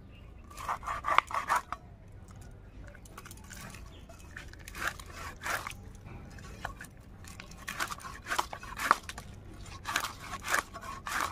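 A whole katla fish being cut on an upright boti blade: the scaly skin and bone crunch and scrape in several short bursts of cutting strokes as the blade works through behind the head.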